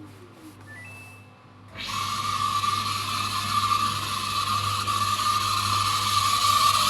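Samsung DV80TA02OAX tumble dryer: a few short control-panel beeps, then about two seconds in the drum motor starts and runs loud and steady with a continuous high squeal over a low hum. This is the squeaking that the video's title blames on the drive motor.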